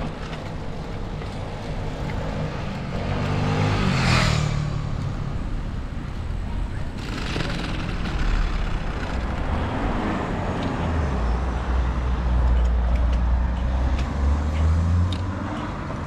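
Street traffic heard from a moving bicycle. A motor vehicle passes about four seconds in, swelling and fading, and a second passes near seven seconds. A low engine hum carries through the second half.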